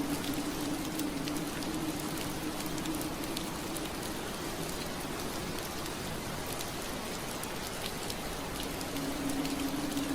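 Steady rain on window glass, an even hiss dotted with small drop ticks. A low steady hum sits under it, fading out about three seconds in and coming back near the end.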